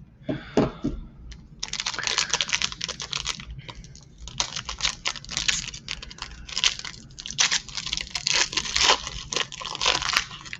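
A foil trading-card pack being torn open and crinkled by hand: dense, uneven crackling and rustling that begins about a second and a half in and goes on in bunches, with many sharp clicks of the wrapper.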